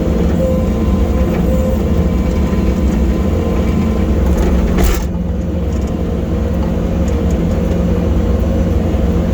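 Bobcat T870 skid steer's diesel engine running steadily under work, with a single clunk a little past halfway, after which it runs slightly quieter.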